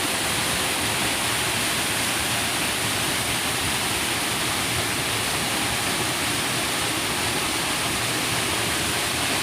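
Steady, even rush of river water flowing.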